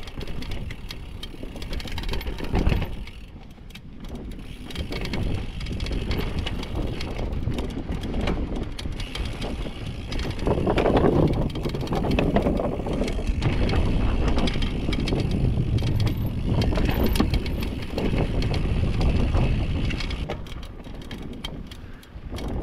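Downhill mountain bike rolling fast down a dirt trail: tyre noise, rattling and clicking of the bike over rough ground, with wind on the microphone. It is loudest through the middle and later part, where the bike crosses a wooden boardwalk and picks up speed.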